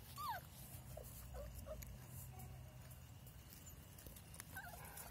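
Puppies whimpering faintly as they greet their mother: a high falling whine at the start, a few short squeaks over the next two seconds, and another near the end.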